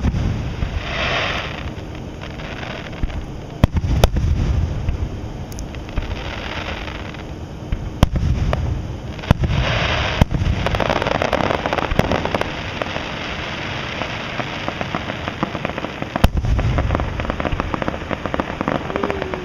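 Aerial fireworks display: shells bursting with about half a dozen sharp booms spaced a few seconds apart, with hissing in between. From about halfway through comes a long stretch of dense crackling.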